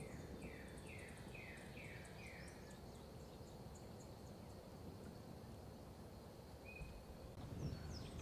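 Faint outdoor ambience: a bird sings a run of about six quick down-slurred notes in the first few seconds, and other birds chirp briefly near the end. Underneath are a low steady rumble and a thin, steady high tone like an insect's drone.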